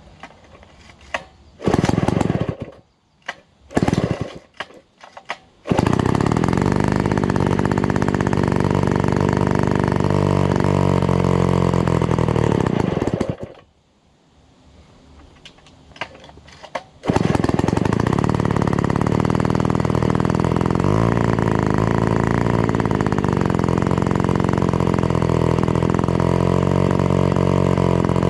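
Vintage Be-Bo 125cc two-stroke chainsaw engine being started: a few brief catches in the first few seconds, then it runs for about seven seconds, dies, and after another couple of short catches starts again about 17 seconds in and keeps running steadily.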